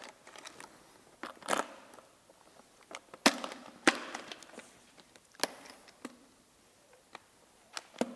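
Plastic airbox cover of a Yamaha YZ250F dirt bike being pressed back into place by hand: a handful of separate sharp plastic clicks and knocks, the loudest a little over three seconds in.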